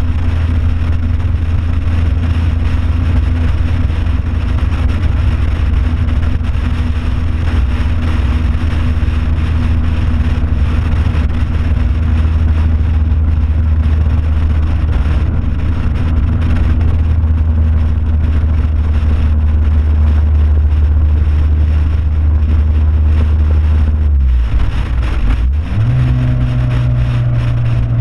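Track car's engine pulling hard and steady down a long straight, its note rising slowly, heard from outside the car over a rush of wind. Near the end the note falls away and then jumps to a higher steady pitch, as when the driver lifts, brakes and downshifts for a corner.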